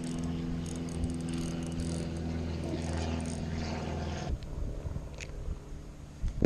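A motor running with a steady low hum, which stops about four seconds in; a few soft knocks follow.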